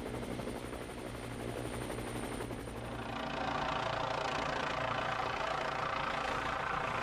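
Helicopter running as it flies close past, its rotor and engine making a steady drone that grows louder about three seconds in.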